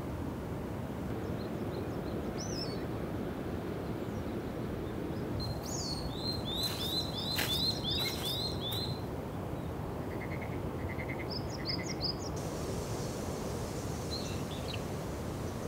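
Small birds calling over a steady low background of outdoor noise. The loudest part is a quick run of about seven repeated high chirps midway, followed by a few softer short calls.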